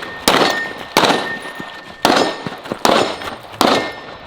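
Five handgun shots at a steady pace, about one a second, each with a sharp crack and a ringing tail, with a clang ringing on after some of them as from struck steel targets.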